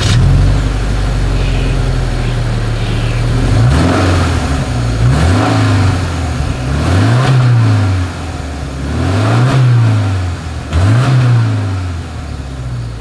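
2025 Subaru Outback's flat-four boxer engine heard at its single exhaust outlet. It idles steadily, then is revved five times in quick blips, each rising and falling back to idle.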